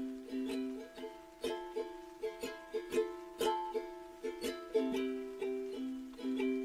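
Background music: a light instrumental tune of plucked-string notes, each struck and fading.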